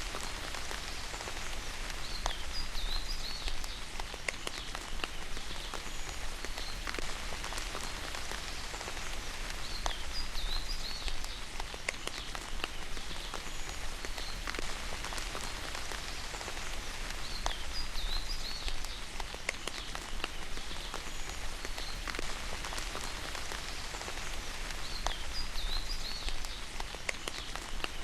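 Steady rain falling, with a constant hiss and many fine drops ticking on a surface. A short, high chirping call sounds four times, about eight seconds apart.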